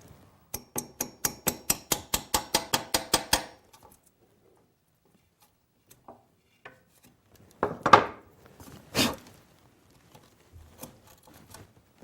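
A hammer tapping a drawer lock chisel: a quick run of about fourteen light, ringing metal taps, about five a second, over some three seconds. Later come two louder scraping knocks as the chisel cleans out the lock recess.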